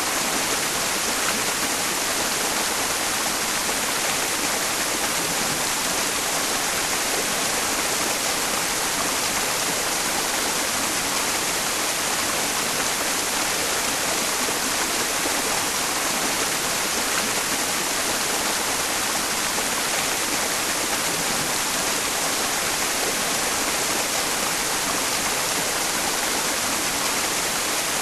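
Mountain stream rushing, blended with steady white noise: an even, unbroken hiss with a strong high treble, made for masking tinnitus.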